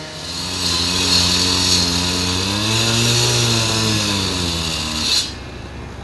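A small-engined power tool running hard, its pitch rising to a peak about halfway and then falling, over a loud hiss; it stops abruptly about five seconds in.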